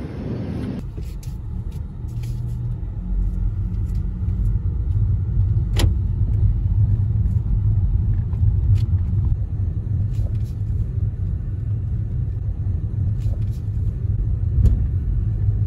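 Steady low rumble of a car on the road, heard from inside the moving vehicle, with a few faint clicks.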